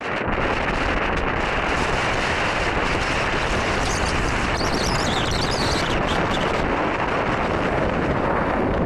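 Gale-force wind battering the microphone: a loud, steady rushing rumble.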